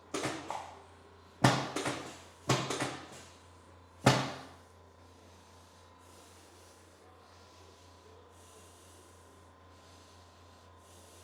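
A quick series of sharp knocks or clacks, four clusters in the first four seconds, some double or triple, each dying away fast. After that only a faint steady hum with a thin steady tone remains.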